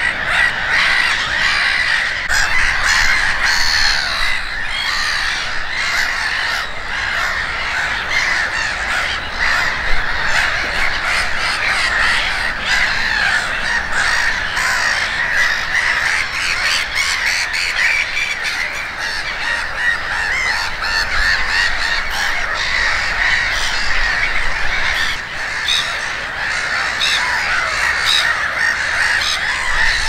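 Black-headed gulls calling: a steady chorus of many overlapping calls with no pauses, as from a flock or colony.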